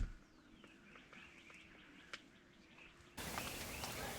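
Small birds chirping and warbling outdoors, with a brief low thump at the very start and a sudden rise in the background noise about three seconds in.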